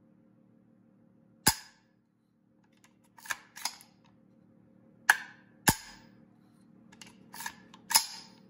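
Smith & Wesson M&P 15-22 .22 rifle being cycled and dry-fired to test its mil-spec-style trigger: sharp metallic clicks, mostly in pairs about half a second apart, as the charging handle is racked and the hammer is dropped. A faint steady hum runs underneath.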